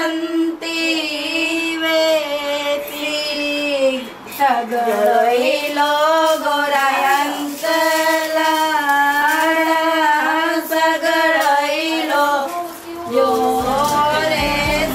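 A high voice singing long, drawn-out notes with a wavering pitch, almost unaccompanied. Near the end a low beat and instruments come in as the song's music starts.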